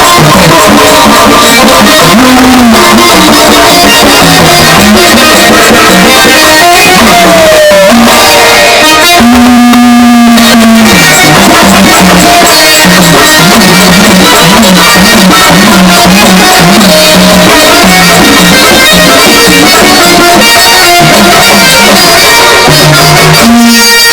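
Loud instrumental folk music: a plucked-string lead melody over a drum beat, with one long held note about halfway through.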